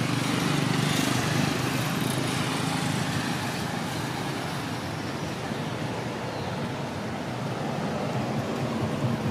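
A steady engine hum with a hiss over it, a little louder in the first couple of seconds.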